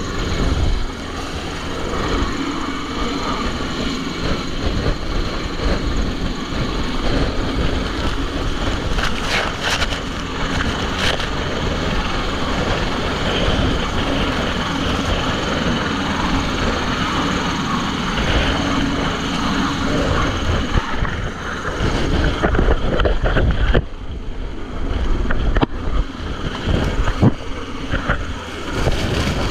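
Helicopter hovering low overhead: steady rotor and engine noise, with its downwash buffeting the microphone. The noise turns rougher and gustier in the last several seconds, with some knocks.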